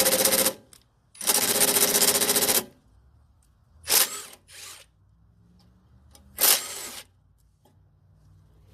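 Cordless drill/driver whirring in runs and short bursts while backing out fasteners on a snowblower's housing: a brief run, a longer run of about a second and a half, then a few short blips.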